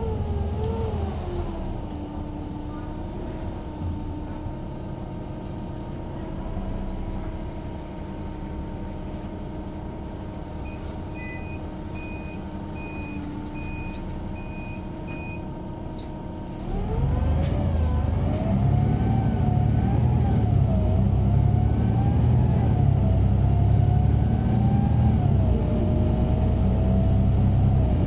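Van Hool AG300 bus's DAF PR228S six-cylinder diesel heard from inside the cabin: it slows and idles at a stop, with a run of about six short beeps in the middle. About 17 s in the engine revs up and gets much louder as the bus pulls away, its pitch climbing and dropping back with each gear change.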